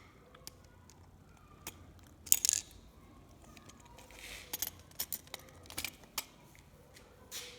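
Scattered small clicks and taps of hard objects being handled, loudest a little over two seconds in, with a brief rustle around four seconds in.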